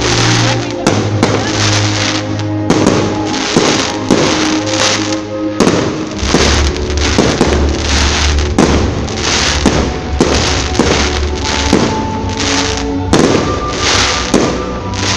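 Fireworks bursting one after another, a sharp bang every second or so, with music playing alongside.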